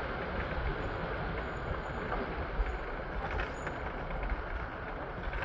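City street traffic: a steady rumble of passing vehicles, trucks and buses among them, with one short click about halfway through.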